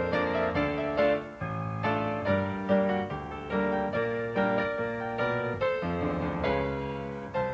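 Background instrumental music: a keyboard tune of struck notes and chords, a new one roughly every half second to a second, each fading after it sounds.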